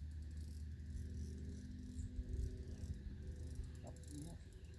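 Fishing reel ticking in a fine, rapid rattle while a blue catfish is being fought on the line, over a low steady hum.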